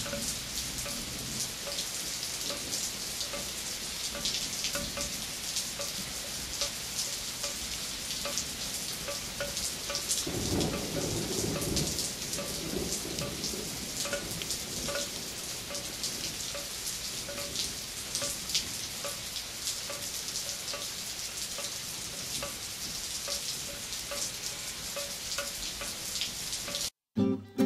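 Steady rain falling, with a low rumble of thunder about ten seconds in; it cuts off abruptly near the end.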